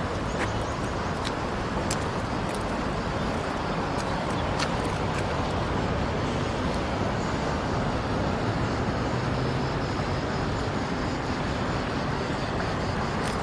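Steady wash of busy city road traffic, with a few faint clicks scattered through it.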